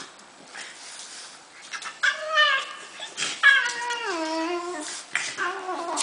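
Puppy whining during play: three drawn-out cries beginning about two seconds in, each sliding down in pitch, the middle one the longest.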